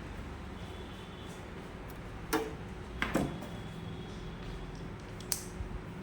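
A few short, sharp clicks and knocks from a screwdriver and its bits being handled: one about two seconds in, a double knock about three seconds in and one more near the end.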